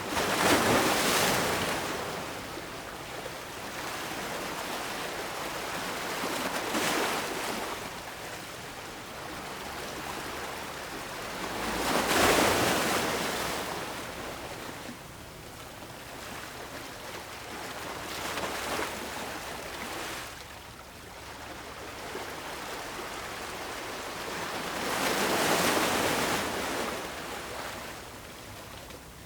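Ocean waves breaking and washing up a beach, swelling and falling back about every six seconds, five times in all.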